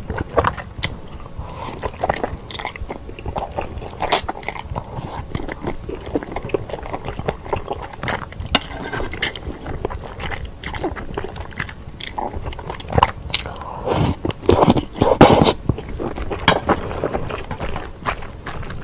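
Close-miked eating of wide Chinese glass noodles in a spicy kimchi sauce: slurping the noodles in and chewing them, with irregular wet mouth clicks and smacks. The loudest stretch of sounds comes about three-quarters of the way through.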